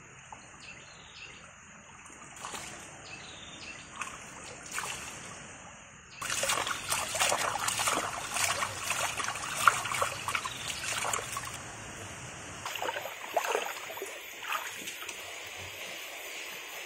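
Hands splashing and scooping water in a shallow stream. The splashing is loud and irregular for about six seconds in the middle, then stops abruptly.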